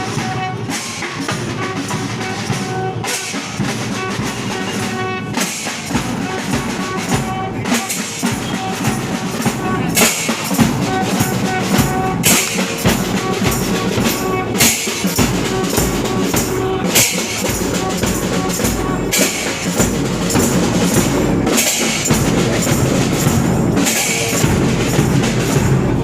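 Music with a drum-kit beat, the bass drum growing heavier a few seconds in and cymbal-like hits coming in about every two seconds in the second half.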